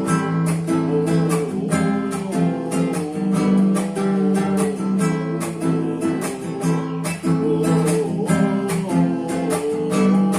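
Acoustic guitar strummed in a steady, fast rhythm, working through the song's F, G and A minor chords.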